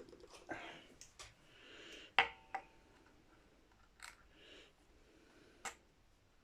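Desoldering on guitar pot and wire joints: a soldering iron sizzling softly on the solder, with a few sharp clicks of small metal tools, the loudest about two seconds in with a short ring.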